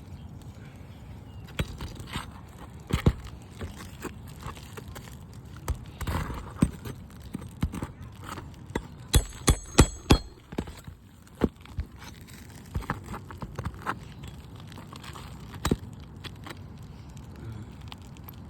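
Hand tools and movement on a brittle asphalt shingle roof during a repair: scattered knocks and taps, with a quick run of about six sharp, ringing strikes about nine seconds in.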